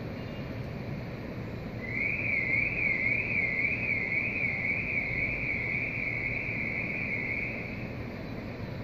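A high electronic alarm tone warbling up and down about twice a second, starting about two seconds in and fading out some six seconds later, over steady outdoor background noise.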